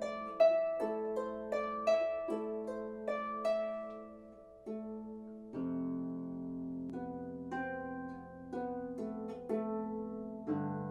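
Background music: a slow melody of plucked, harp-like notes, each ringing and fading, with low held tones coming in underneath about halfway through.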